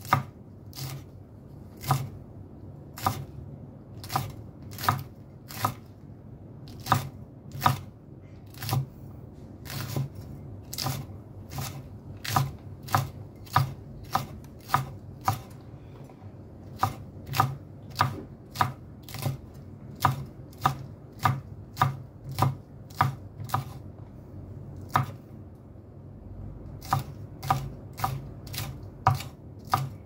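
Kitchen knife chopping green chilies into small pieces, one sharp cut at a time at an uneven pace of about one or two cuts a second, with a brief pause near the end.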